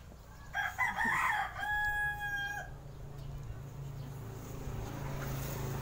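A rooster crowing once, starting about half a second in: a choppy opening followed by a long held note, about two seconds in all.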